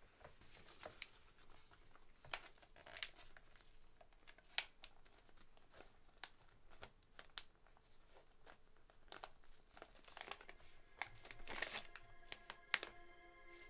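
Crumpled paper rustling and crinkling in irregular handfuls as it is pulled about and unfolded. Soft sustained music tones come in near the end.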